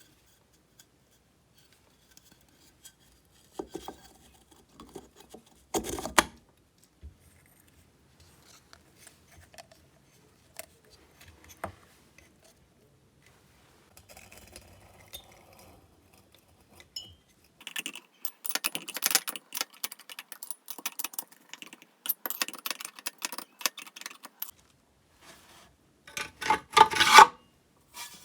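Chainsaw parts and hand tools being handled and fitted together during reassembly: scattered clicks and knocks, a stretch of scraping and rubbing about two-thirds of the way in, and a louder burst of it near the end.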